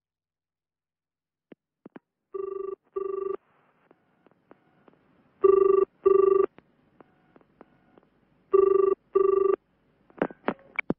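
Telephone ringing with a double ring: three ring-ring pairs about three seconds apart. A few sharp clicks near the end are the handset being picked up.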